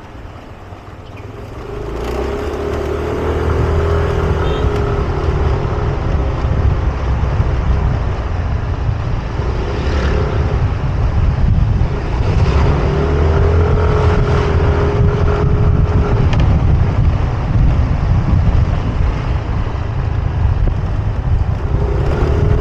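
Motor scooter riding along a street, heard from the rider's seat: the engine drone swells as it picks up speed a second or two in and again midway, over a heavy low rumble of wind and road noise on the microphone.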